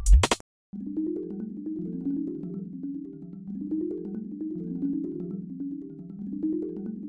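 A spatula scrapes and knocks against a frying pan for a split second at the start. After a brief gap, light background music follows: a gentle, repeating mallet-percussion melody.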